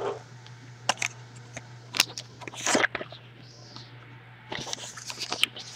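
Scattered sharp clicks, knocks and scuffs from an English Springer Spaniel puppy playing with a soccer ball, coming faster and busier near the end.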